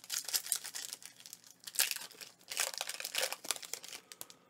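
Foil wrapper of a Pokémon TCG booster pack crinkling and tearing as it is ripped open by hand, a rapid, irregular crackle with louder bursts.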